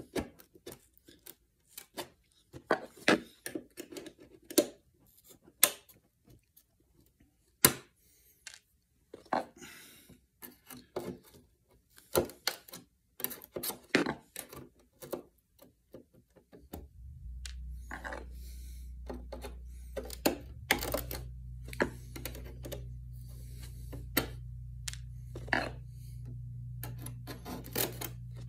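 Screwdriver and pliers prying small finish nails out from under a thin aluminum drip-edge strip on a wooden speaker baffle: irregular metal clicks, taps and scrapes. About two-thirds of the way through, a steady low hum starts up beneath them.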